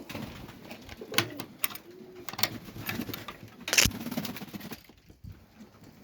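Young Serbian highflyer pigeons cooing in a loft, low rising-and-falling coos, mixed with several sharp clicks and knocks; the loudest knock comes a little under four seconds in.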